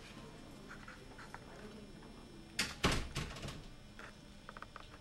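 Two sharp thumps in quick succession about halfway through, over faint room noise, with a few light clicks before and after.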